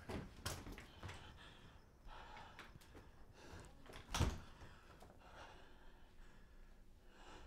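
Soft knocks and rustles in a quiet room, with one sharper, louder thump a little past the middle.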